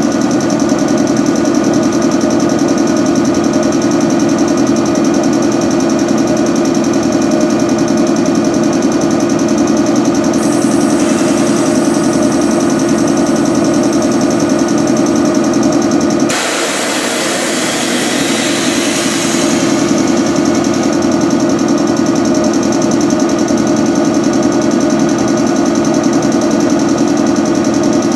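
An MH80-C1000 electric air compressor under a 113-series train car runs steadily. It is a motor-driven two-cylinder piston compressor, running with a rhythmic knocking hum as it charges the train's air supply. About two-thirds of the way through, a loud hiss rises for about three seconds while the compressor's hum dips.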